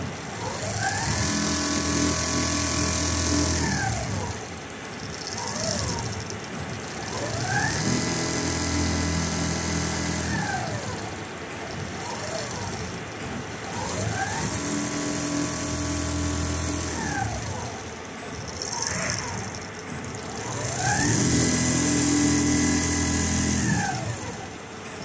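Automatic sewing machine with a 360° rotating head stitching heavy padded jacket material in four runs. Each run whines up in pitch, holds for about three seconds, then winds down before a short lull.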